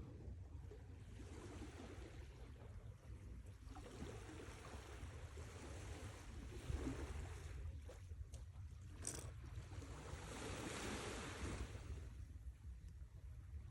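Sea waves washing onto a shore, the surf swelling and fading in several rolls over a steady low rumble. A short sharp click about two-thirds of the way through.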